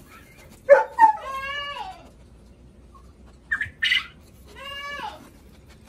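Kitten meowing inside a cardboard carrier box: two drawn-out meows, about a second in and near the end, with short breathy bursts in between.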